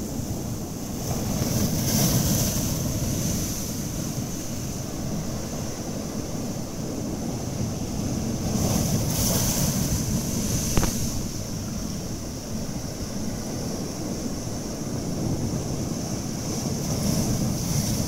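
Sea surf breaking over a rocky shore: a steady rush of churning water, with bigger breakers swelling up about two seconds in, around the middle and near the end. A sharp knock sounds just after the middle breaker.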